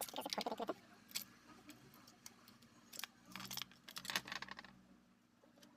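Clicking and rattling of a small plastic speaker casing being handled and worked open by hand, in a few quick clusters of clicks.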